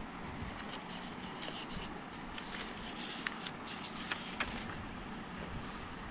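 Paper pages of a booklet being turned by hand: rustling with a few sharp crackles between about one and a half and four and a half seconds in, over a steady hiss.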